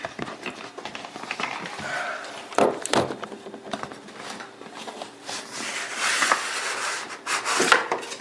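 Rubbing, scraping and rustling of a video card's cardboard and hard plastic packaging being handled and opened, with a few sharp knocks.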